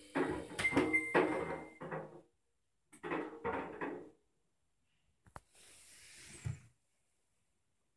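Samsung washing machine in its service test mode: two runs of short electronic notes with a thin high beep, then a sharp click, a short hiss and another click, as relays and a valve are switched.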